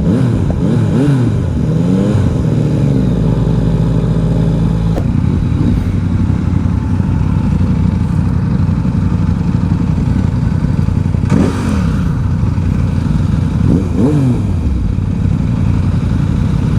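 Yamaha XSR900's inline-three running through a full Akrapovic twin-pipe exhaust while riding, with a deep bassy note. It revs up and down several times in the first few seconds, holds steadier through the middle, then rises and falls again a couple of times near the end, over steady wind rush.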